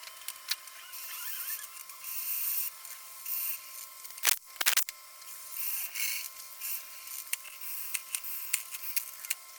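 Wood lathe running with a steady whine while a turning tool cuts a spinning burl blank, giving repeated short bursts of scraping hiss with scattered clicks. Two sharp knocks come about four and a half seconds in.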